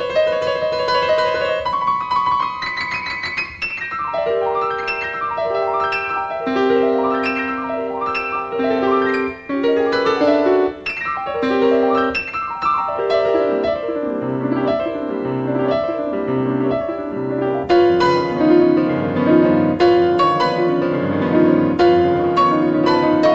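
Solo acoustic piano playing classical music: quick figures and repeated notes across the keyboard, fuller and louder in the bass for the last few seconds.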